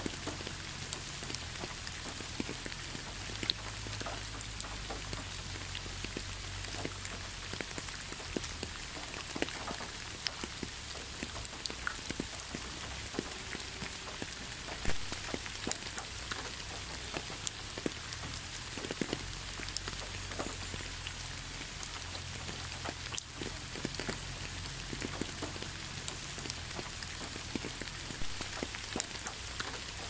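Waterfall splashing steadily: an even hiss of falling water dotted with many separate drips and splashes.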